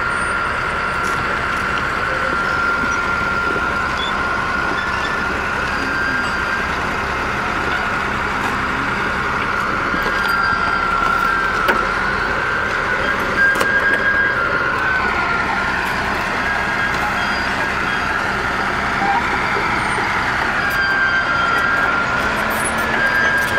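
Caterpillar D6H XL crawler bulldozer's diesel engine running steadily with a high whine, its note rising about halfway through. A few sharp cracks come as the blade crushes a fibreglass boat hull.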